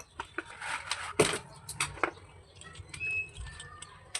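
Slate pencils being handled: irregular clicks and taps with some rustling, the loudest click about a second in.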